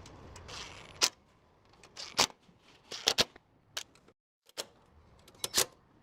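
Sharp metallic clicks and knocks from hand tools working the bumper's bolts, about eight of them at irregular intervals.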